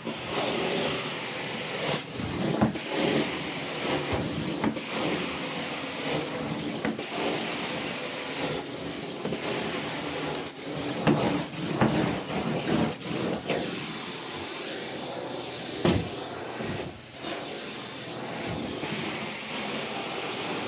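Truck-mount carpet cleaning extraction wand (a hybrid glide) in use on carpet: a steady rushing suction hiss that swells and dips unevenly, with a few knocks along the way.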